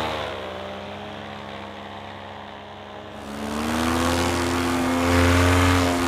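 Paramotor's two-stroke engine and propeller running. Its pitch falls as it passes and the sound fades, then about three seconds in the pitch rises again and the sound grows louder and steady.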